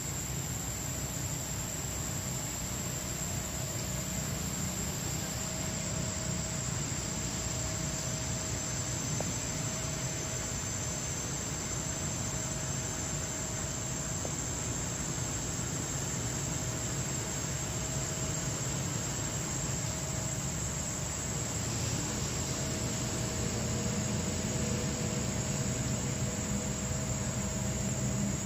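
Steady forest ambience: a constant high-pitched insect drone over an even low hiss and rumble.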